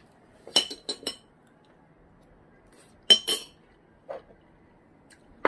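Metal kitchenware clinking in short groups: three sharp clinks with a high ring about half a second in, two more just after three seconds, a duller knock around four seconds, and a last cluster at the end.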